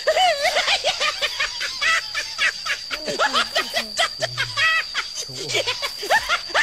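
High-pitched, squeaky giggling and snickering, many short rising and falling laughs in quick succession, over a thin steady high whine.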